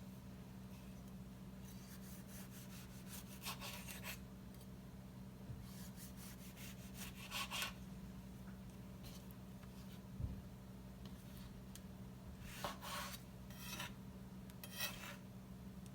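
Short bursts of scraping and rubbing from kitchen food preparation, several times, with a single sharp knock about ten seconds in, over a steady low hum.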